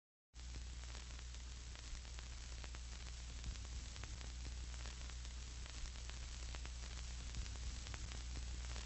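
Electrical static: a steady hiss with a low mains hum and scattered crackling clicks, cutting in abruptly just after the start.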